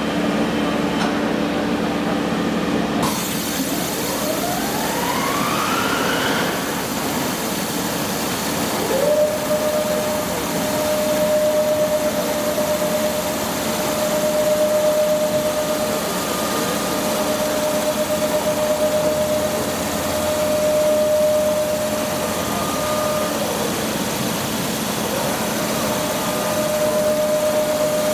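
Scharmann CNC horizontal floor borer running: a drive whine rises in pitch about 4 seconds in, then a steady whine holds from about 9 seconds while the boring ram retracts into the headstock. The whine drops away briefly about 23 seconds in and comes back near the end, over a constant machine hum.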